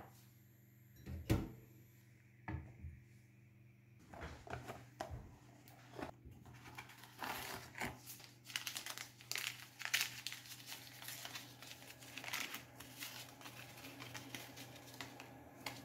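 A few light knocks, then about ten seconds of crinkling and rustling as a cardboard tea box is handled and a paper tea-bag sachet is torn open.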